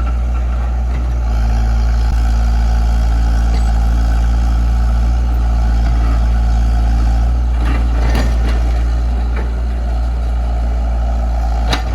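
Komatsu PC68 excavator's diesel engine running steadily, with a few short knocks about two-thirds of the way in and another just before the end.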